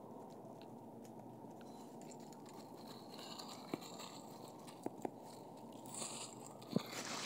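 Footsteps crunching and rustling through dry fallen leaves, faint over a steady low background noise, with a few sharper crackles and snaps that come more often in the second half.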